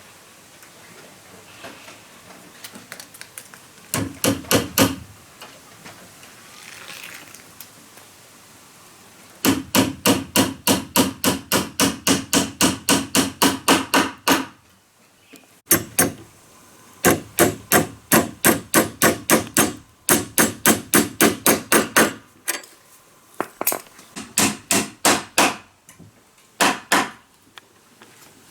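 Hammer blows in quick runs of about four strikes a second, several bursts of a few seconds each with short pauses between, the longest run lasting about five seconds.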